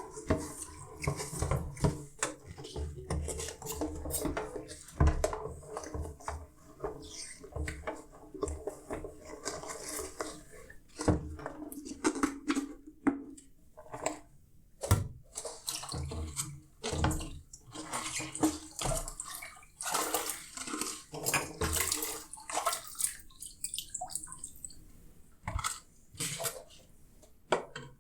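Dishes being washed by hand in a sink: water splashing and running, with frequent clinks and knocks of dishware against each other and the sink.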